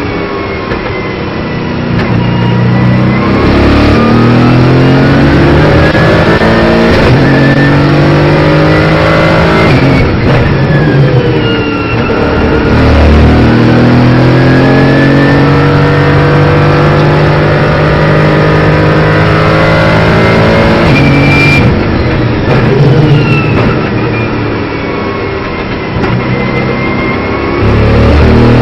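Mercedes-AMG GT4 race car's twin-turbo V8 heard from inside the cabin at racing speed. Its pitch climbs under throttle and falls away several times as it shifts between second and third gear for corners.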